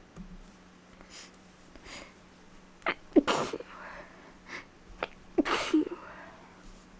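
A woman sneezing twice, about three seconds in and again about five and a half seconds in, each sneeze led by short in-breaths.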